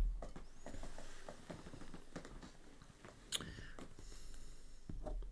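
Faint scattered clicks and small mouth noises close to a headset microphone, with one sharper click about three seconds in.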